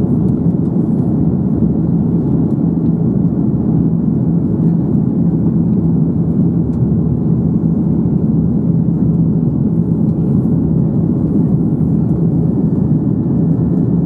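Airbus A330-300 airliner climbing after takeoff, heard inside the cabin: a steady roar of engines and airflow with a low, even hum.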